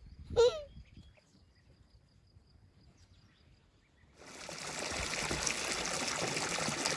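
A brief high chirp about half a second in, then, from about four seconds in, steady splashing water as a child swims in a pool.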